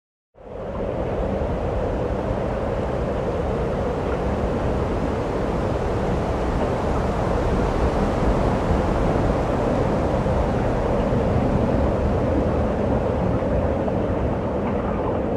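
A loud, steady rumbling noise that cuts in suddenly and holds without a break.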